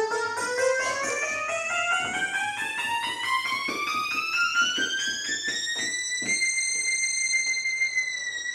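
Roland JD-800 synthesizer played note by note in a steady climb up the keyboard, then holding a high note whose pitch dips briefly near the end. The keys are being tested one after another after a new contact strip was fitted, and they all sound.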